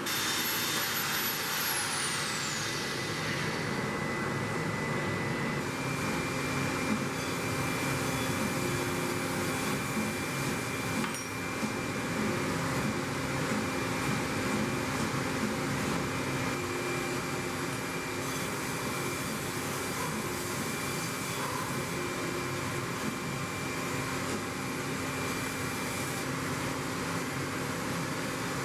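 Steady rushing noise of running machinery, with a faint whistle falling in pitch over the first few seconds and faint steady tones above it.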